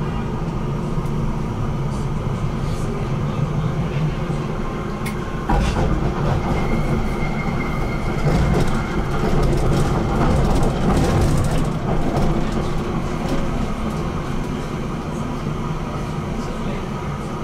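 BN GTL8 articulated tram running on its rails with a steady rumble. From about five seconds in the track noise grows louder and clattery, with a brief high wheel squeal; it eases off a little after about twelve seconds as the tram slows for its stop.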